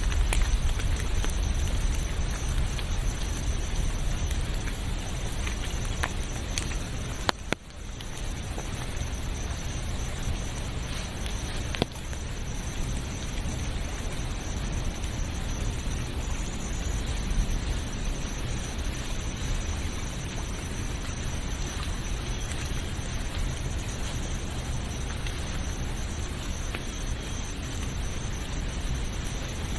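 Steady rain hissing, with a thin, constant high-pitched tone above it. The sound drops out briefly about seven seconds in and comes back a little quieter.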